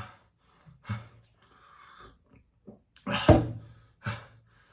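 A man coughing and catching his breath in short bursts, with one loud cough about three seconds in. It is the lingering cough of a cold that has lasted several days.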